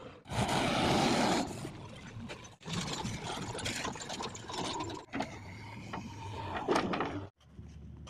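Diesel engines of a JCB backhoe loader and farm tractors running while soil is loaded, with scattered clanks and knocks. The sound changes abruptly three or four times.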